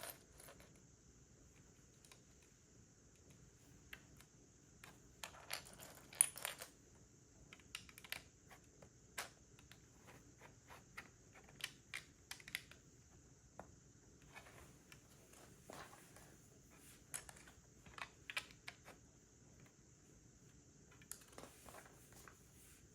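Plastic LEGO bricks being handled and pressed together: faint, irregular clicks and small rattles, coming in little clusters.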